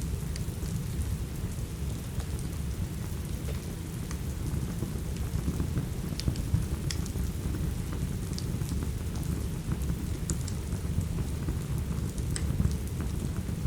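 Steady rain with a deep low rumble underneath. Scattered sharp pops and crackles from a wood fire burning in a fireplace run through it.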